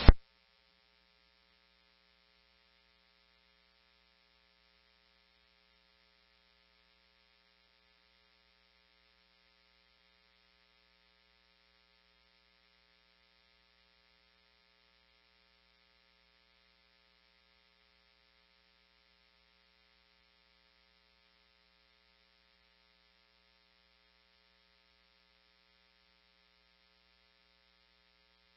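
A brief burst right at the start as the preceding radio transmission cuts off. Then a faint, steady electrical hum with a thin hiss from the idle scanner audio feed between transmissions.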